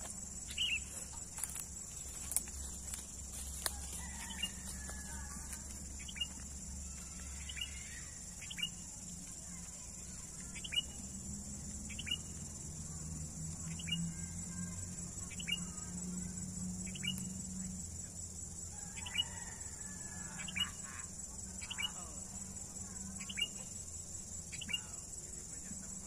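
Short, falling bird chirps about once a second, from a kutilang (sooty-headed bulbul), over a steady, high-pitched insect drone like crickets.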